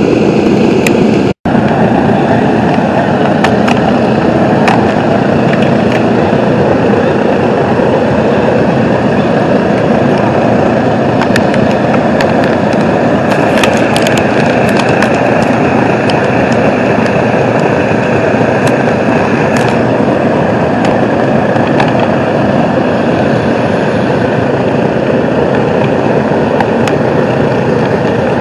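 A Boeing B-29 Superfortress's four Wright R-3350 radial engines running steadily at idle on the ground, a loud, continuous drone. There is a split-second gap about a second and a half in.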